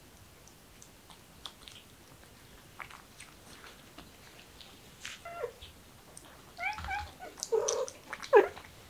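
Kitten mewing: after a few quiet seconds with faint clicks as it bites at a toy, it gives several short, high mews in the second half, the loudest near the end.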